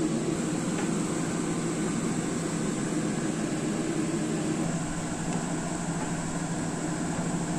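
Steady machine hum, with a low drone under it that eases slightly about four and a half seconds in.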